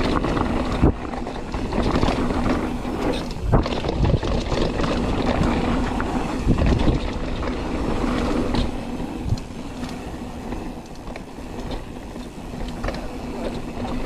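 Mountain bike ridden down a dirt trail: a steady rumble and rattle of tyres and bike over rough ground, with sharp knocks from bumps now and then.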